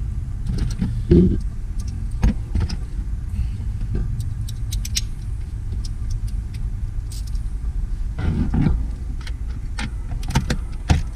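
Scattered clicks and knocks of a metal battery hold-down bracket and hardware being handled and fitted at the base of a car battery, over a steady low rumble.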